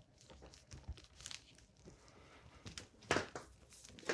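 Plastic-sheathed electrical cable being uncoiled from its roll by hand: faint, intermittent rustling and scraping, with a louder rustle about three seconds in.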